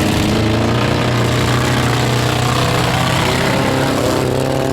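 Engines of several four-cylinder demolition derby cars running and revving, their pitches wavering.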